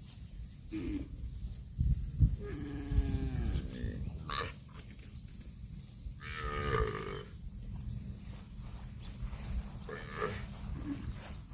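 Cattle mooing: a drawn-out call falling in pitch, then a second, brighter call a few seconds later, with a few short calls in between, over a steady low rumble.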